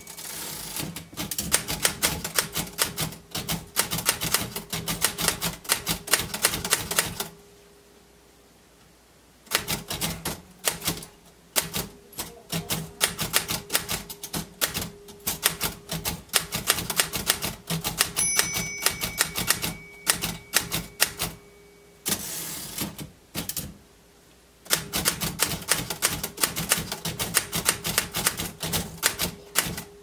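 Royal manual typewriter being typed on: quick runs of key strikes, the typebars clacking against the platen, twice broken by pauses of about two seconds. It starts with a carriage return, the margin bell dings once about 18 seconds in, and the carriage is returned again a few seconds later.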